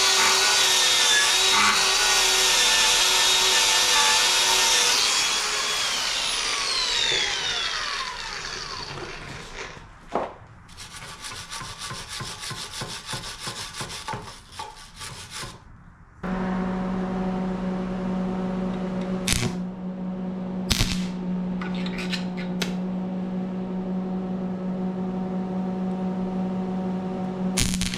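Grinder grinding on steel for about five seconds, then winding down with its pitch falling. A steady low hum follows, with a few sharp clicks.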